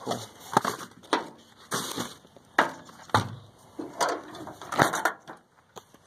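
Footsteps crunching on sandy dirt, a sharp scuffing step about every half second or so.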